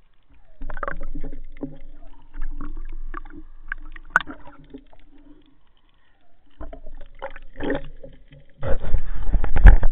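Water sloshing and rushing against a waterproof camera housing on a speargun as the diver goes from the surface to underwater, with scattered knocks. The rush of water is loudest in the last second or so.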